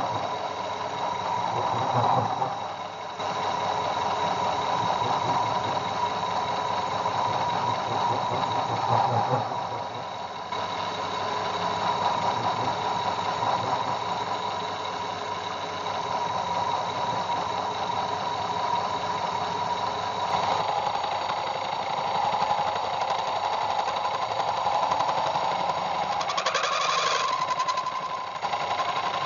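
Metal lathe running while a long-reach 10 mm boring bar cuts deep inside a cast pulley's bore, a continuous machining noise with a steady high whine.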